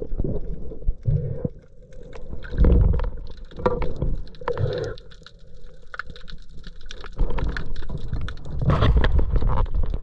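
Muffled underwater noise picked up by a submerged camera: water rumbling and gurgling in irregular swells, with scattered clicks and knocks.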